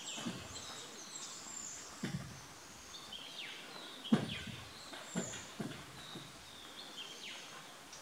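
Several wild birds calling with short, high chirps and whistles over a faint background hiss, with a few low knocks, the sharpest about four seconds in.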